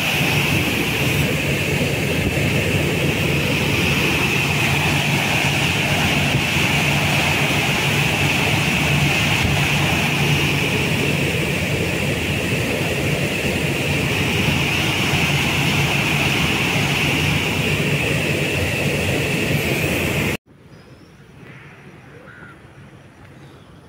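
Water discharging through a dam's open spillway, a loud steady rush of churning whitewater. It cuts off suddenly about twenty seconds in, leaving only faint background sound.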